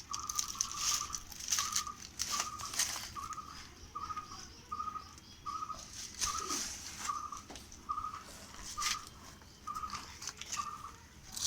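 Electronic warning beeper sounding short beeps at one steady pitch, about one and a half a second, over a hiss with crackling.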